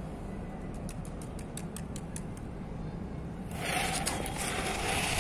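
Flower pot (anar) firework being lit: the fuse sputters with faint small crackles over a low steady rumble, then about three and a half seconds in the fountain catches with a sudden hiss of spraying sparks that keeps growing louder.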